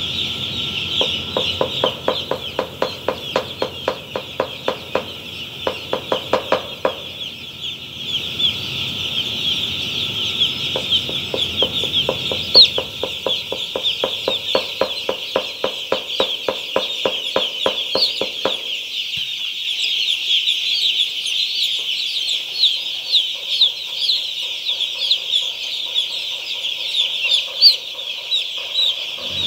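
A dense, continuous chorus of high-pitched peeping from thousands of day-old chicks. For the first two thirds a rhythmic ticking, about five a second, runs underneath, then stops abruptly.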